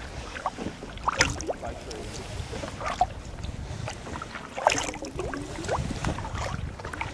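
Kayak paddles dipping and splashing in the water, with small gurgles and drips between strokes. The two loudest splashes come about a second in and at about four and a half seconds.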